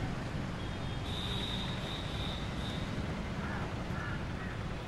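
Roadside traffic ambience with a steady low rumble of passing vehicles. A high, thin tone starts about half a second in and holds for about two seconds, and a few short, bending calls come near the end.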